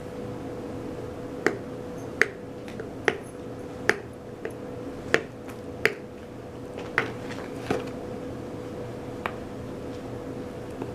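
Packaging being opened around a boxed mug: about a dozen sharp, irregular clicks and snaps over a steady faint hum.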